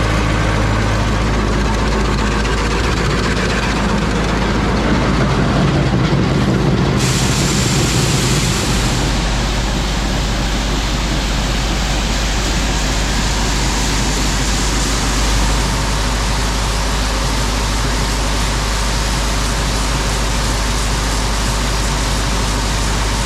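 John Deere 3010 tractor engine running steadily under load while it drives the grain auger, with a steady low hum and mechanical clatter. About seven seconds in, a steady hiss joins in and stays.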